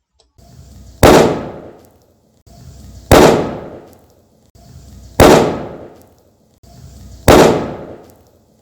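Edited foley explosion effect, made from a bottle of alcohol and crushed Clorox tablets bursting, played four times about two seconds apart. Each time a short hiss builds up, then comes a sharp bang with a long fading tail.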